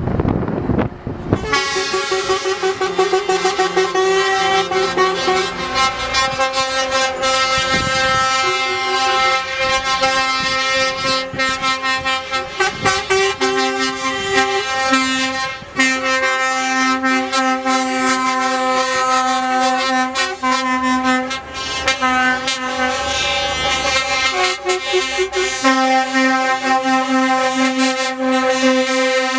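Truck air horns blaring almost without a break, several horns overlapping in one steady chord, with individual horns cutting in and out. They start about a second and a half in, after a moment of wind on the microphone.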